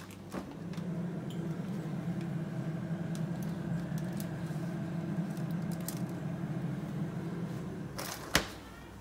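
Refrigerator freezer door pulled open with a click, then a steady hum while it stands open and a tray is pushed in with light rattles. The door is swung shut with a sharp thump near the end.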